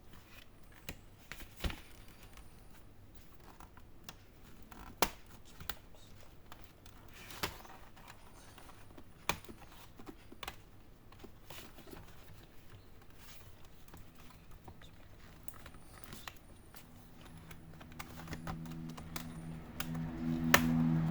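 Plastic snap clips of an HP 14s laptop's bottom case clicking and cracking one by one as it is pried open, with light scraping between the clicks. A low hum builds near the end, under the loudest snap.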